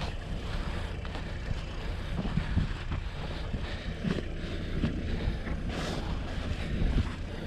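Mini excavator's diesel engine running steadily, with a few short knocks as it digs.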